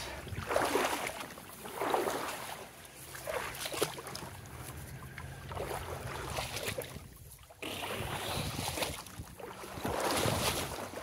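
A person wading out of fast-flowing flood water up into grass at the river's edge, with a swishing stride about every one and a half to two seconds over the rush of the river. About seven and a half seconds in the sound changes abruptly to a steadier hiss.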